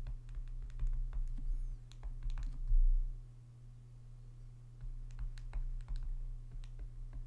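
Stylus tapping and clicking on a tablet's glass screen during handwriting: a scatter of small, irregular clicks over a steady low hum.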